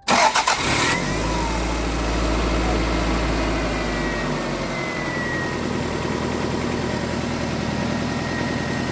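1998 Toyota Camry engine cranking briefly and starting, then idling steadily, with its low hum easing off about five seconds in. No rattle is heard: it sounds like regular engine running after the belt and crank pulley work.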